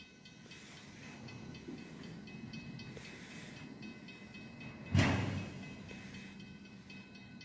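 A slow-moving freight train of tank cars rumbling and clicking on the rails, with one loud clank about five seconds in.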